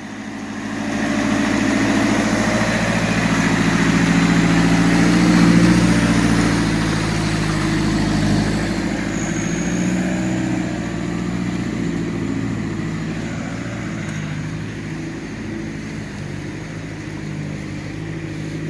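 A motor vehicle's engine running close by at low, steady revs, getting louder over the first few seconds and then slowly easing off.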